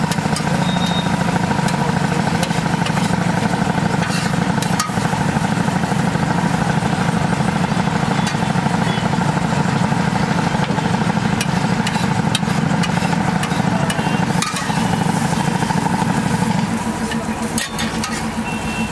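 Steel spatula scraping and spreading an egg mixture on a hot iron pan, with a few sharp taps of metal on metal, over a steady low engine-like hum.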